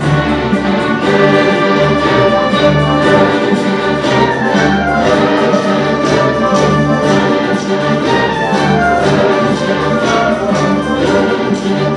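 Youth symphony orchestra playing live, violins, cellos and double basses bowing together in a full, steady passage with a regular rhythmic pulse.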